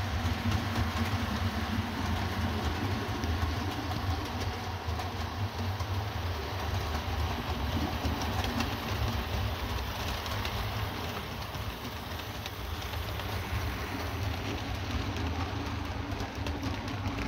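Bachmann OO gauge model of a GWR Hall class steam locomotive and its coaches running on layout track. A steady low hum with the rattle of wheels on the rails runs throughout.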